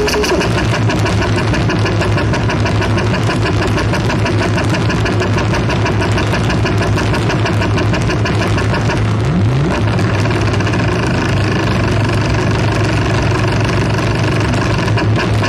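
Experimental sound-art soundtrack: a dense, machine-like drone with fast, even pulsing over a steady low hum, which breaks briefly with a short pitch glide about nine seconds in.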